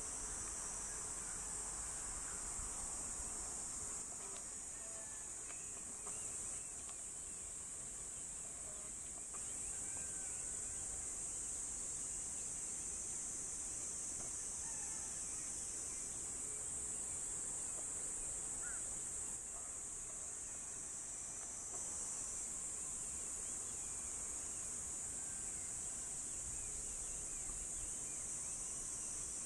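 Steady high-pitched insect chorus, a continuous shrill drone of singing insects from the surrounding grassland.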